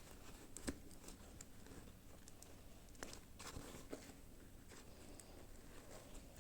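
Faint handling of toy packaging by hands: scattered crinkles, taps and small clicks, with a sharper click just under a second in and a busier run of rustling about halfway through.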